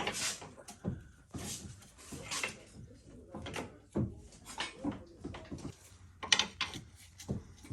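Irregular clunks, taps and scrapes of metal parts as the UTV's rear axle assembly is worked loose and eased out of the hub.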